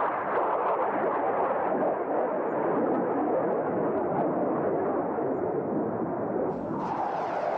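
Jet noise from a Panavia Tornado's twin RB199 turbofan engines as the aircraft flies past low: a steady, dense rushing noise.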